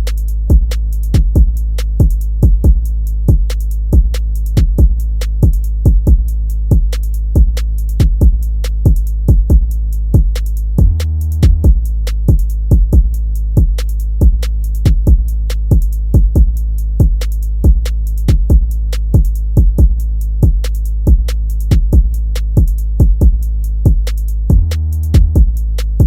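Hip hop instrumental beat: drum machine hits at a steady pace over a constant heavy bass, with brief breaks in the bass twice.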